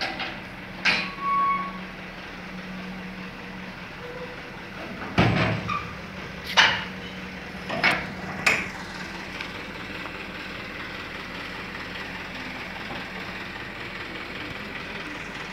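Sharp metal knocks and clanks, about seven spread over the first nine seconds, from the steel tailgate of a Mitsubishi Canter dump truck being worked by hand. After them comes a steady low hum.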